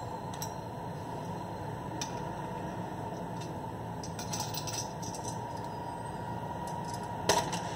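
Light metallic clicks and taps from a chrome kitchen mixer tap and its flexible supply hoses being handled and fitted together by hand, with one sharper click near the end, over a steady low background hum.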